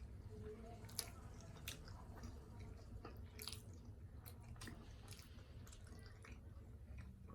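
A person chewing chicken momos (steamed dumplings) with soft, wet mouth sounds and small smacking clicks.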